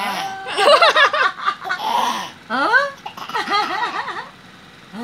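A toddler laughing and giggling in several high-pitched bursts, stopping shortly before the end.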